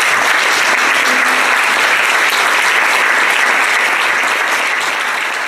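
Audience applauding, a dense, steady clapping that starts to fade near the end.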